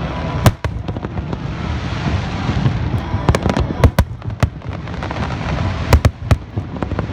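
Aerial fireworks shells bursting: sharp bangs at uneven intervals, one about half a second in, a quick cluster in the middle and two or three more near the end, over a continuous low rumble.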